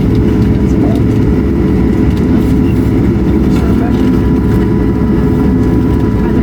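Steady cabin rumble of an Airbus A220-100 taxiing on the ground, its Pratt & Whitney PW1500G geared turbofans at idle, with a faint steady whine above the low drone.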